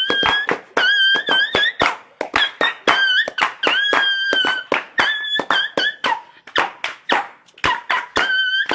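A string of high-pitched squeaks, some held steady for up to a second and some wobbling in pitch, broken up by many sharp clicks and knocks.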